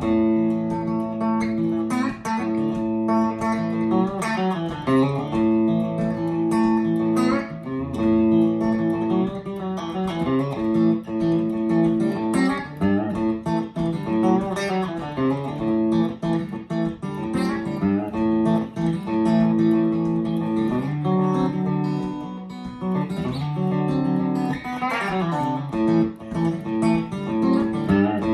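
Electric guitar with a single DiMarzio flat-pole bridge pickup, played clean through a 1975 Peavey Deuce 240T tube amp's normal channel with a touch of reverb. Picked single-note lines and chords ring with frequent attacks, no pedals.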